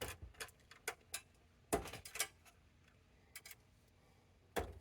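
Scattered light clicks and taps, irregularly spaced, from small tools and parts being handled on a workbench; the louder knocks come a little under two seconds in and near the end.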